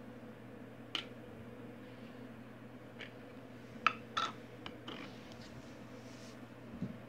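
A handful of light clicks and clinks of small hard objects being handled, two of them near the middle ringing briefly, over a faint steady hum.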